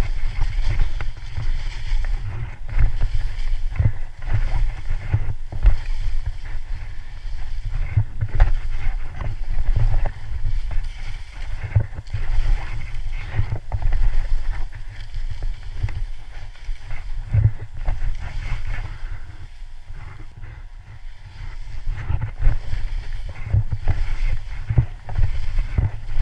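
Wind buffeting an action camera's microphone during a fast ski descent, a heavy uneven rumble, with skis hissing and scraping through soft snow as the skier turns. The loudness surges and dips every second or so.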